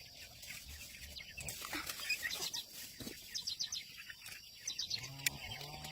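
Small birds chirping in quick runs of short, high notes.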